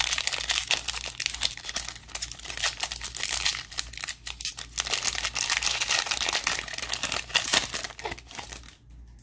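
Foil trading-card pack wrapper crinkling and tearing as it is ripped open by hand, a dense crackle that dies down near the end.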